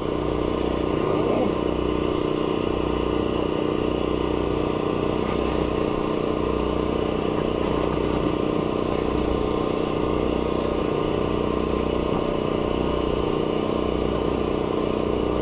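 Air compressor running steadily, a constant hum with a low throb that pulses about once a second.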